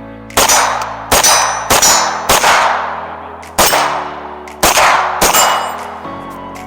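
Seven gunshots at an irregular pace, each sharp crack followed by a long metallic ringing.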